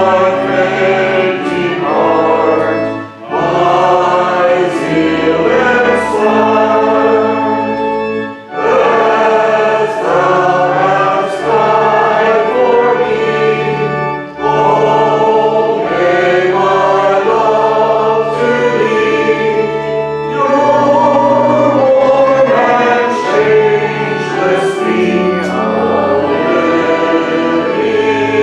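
A choir singing a hymn in slow, held phrases with organ accompaniment, pausing briefly between lines.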